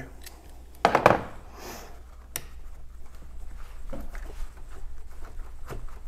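Hand handling of a car battery's positive terminal clamp and tools. There is a louder clatter about a second in and a sharp click a little after two seconds, then small scattered clicks and rubbing as the clamp is worked loose from the post.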